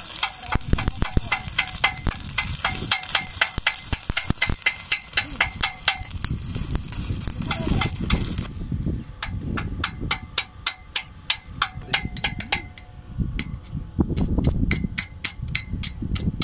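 Stick-welding arc crackling as an electrode lays a root pass on a mild steel pipe joint: a dense, fast crackle of sharp pops over a hiss. The hiss drops out about halfway through while the popping goes on.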